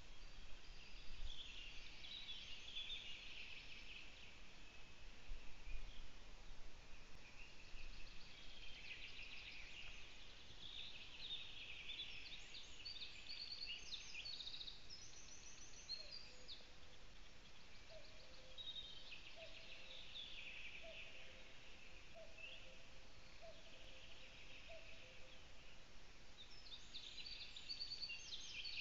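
Wild songbirds singing in the forest, overlapping high chirpy phrases. From about halfway through, a lower two-note call from another bird repeats about six times over several seconds.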